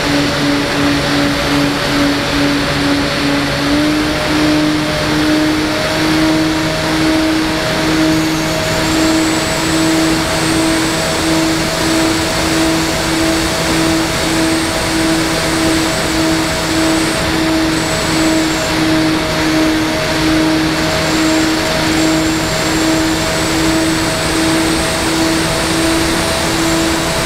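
Electric motor and propeller of an FPV model aircraft running at steady throttle: a continuous hum whose pitch steps up slightly about four seconds in.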